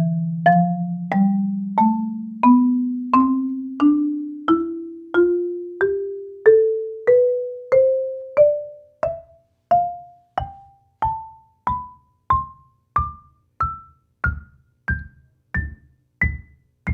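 Marimba played one note at a time in a slow, even ascending scale, about one and a half strokes a second, climbing from the low register to the top. The low bars ring on long and the high bars die away quickly.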